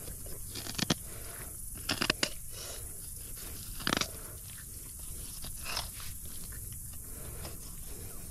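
Knife slicing a fillet off a large blue catfish: a few short crunching cuts through flesh and skin, the loudest a quick cluster about two seconds in and another about four seconds in.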